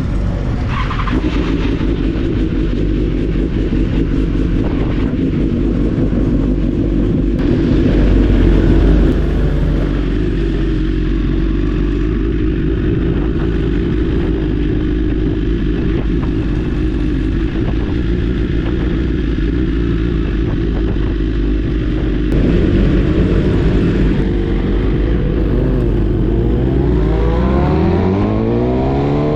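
Yamaha YZF-R6's inline-four engine with an Akrapovic exhaust running at fairly steady revs. Near the end it revs up with a sharply rising pitch.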